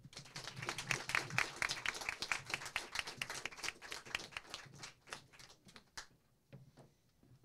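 Audience applauding: dense clapping that thins out after about five seconds and dies away, with a few last scattered claps near the end.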